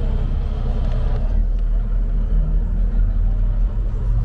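Diesel engine of a fishing boat working close by, a steady low rumble as it pushes water to manoeuvre. Voices chatter in the first second or so.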